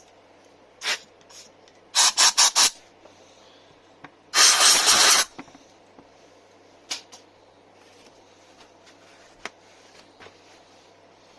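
Hand work on brake parts: short rasping strokes, four in quick succession about two seconds in, then a longer hissing burst of about a second, with small tool clicks in between.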